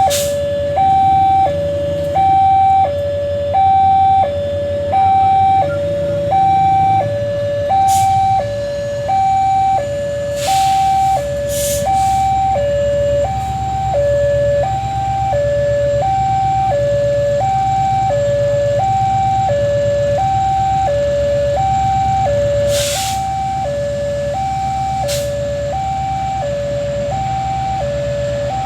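Electronic railway level-crossing alarm sounding a two-tone high-low signal, about one cycle a second, over the low steady running sound of a passing train, with a few short knocks.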